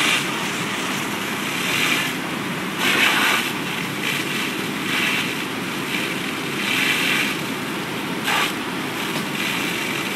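Steady running noise of fire engines pumping water while an aerial ladder nozzle and hose lines spray a structure fire, with a hiss that swells and fades every second or two, loudest about three seconds in.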